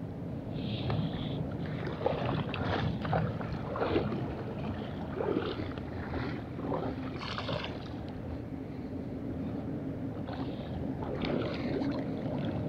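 Water sloshing and splashing close by, with irregular knocks and rustles of fishing gear being handled, over a steady low rumble.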